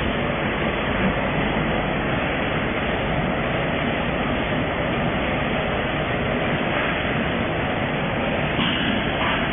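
Automatic vertical packing machines for powder running steadily, giving a continuous, even machine noise with no breaks.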